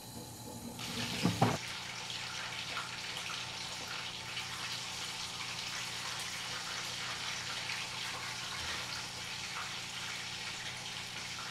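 Meat sizzling in hot oil in a frying pan as it is stirred with a wooden spatula: a steady, crackling sizzle that starts just under a second in, with a brief loud knock of the spatula or pan soon after.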